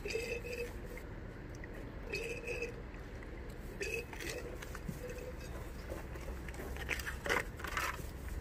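Hand laminating of fiberglass: a roller and trowel working over resin-wet mat, giving short squeaks every second or two and then a run of crunching scrapes near the end.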